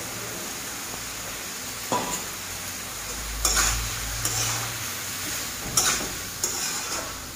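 Metal spatula stirring and scraping chicken, potatoes and vegetables around a metal karahi, with several scrapes and knocks from about two seconds in, over a steady frying sizzle.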